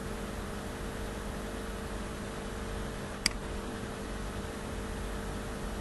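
Steady background hiss with a faint low hum, the mic's room tone between narrated lines. A single sharp click about three seconds in, a computer mouse click opening another image.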